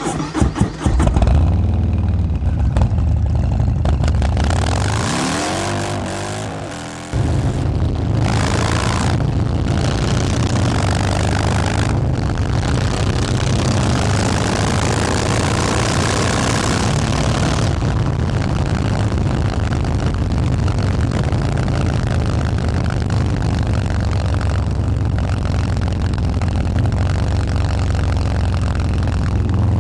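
Harley-Davidson Fat Boy's 131 ci (2147 cc) Stage 4 V-twin running through a Bassani 2-into-1 exhaust. It is blipped several times in the first couple of seconds, and the revs fall away from about five to seven seconds in. Then it jumps back up abruptly and runs on steadily with a deep low beat.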